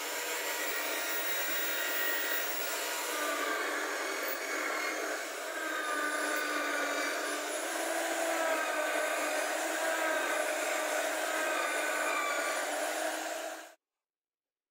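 Homemade drill press running and drilling through a laminated plywood board: a steady motor whine with slight shifts in pitch as the bit cuts. It cuts off suddenly about a second before the end.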